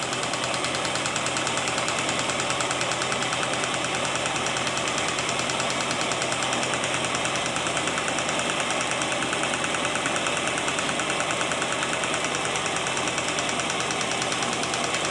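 Gamma-type Stirling engine with a Ross yoke linkage running steadily, its mechanism giving off a fast, even clatter.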